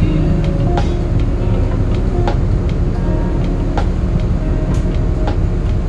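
Steady low engine rumble with faint ticks at an even pace, about every three-quarters of a second.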